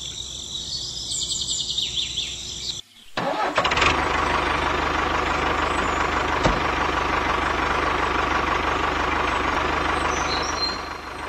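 Tractor engine sound starting up about three seconds in, then running steadily with a low, fast pulse. Before it there is a softer ambience of rapid high chirping, and faint bird chirps continue under the engine.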